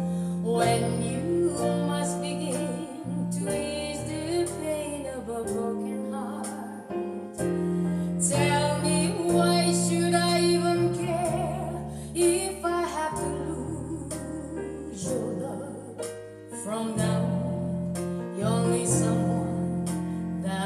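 Recorded ballad playing: a woman singing over piano and a steady bass line.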